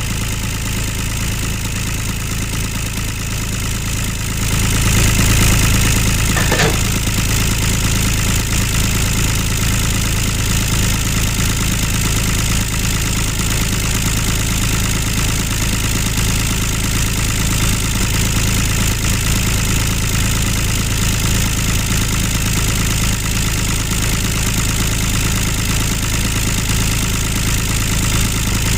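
Small tractor-style engine running steadily at idle, a steady low hum that gets louder about four and a half seconds in.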